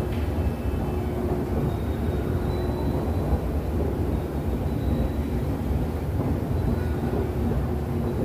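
Steady low rumble of an underground subway station, with the drone of a moving escalator and faint steady mechanical hums.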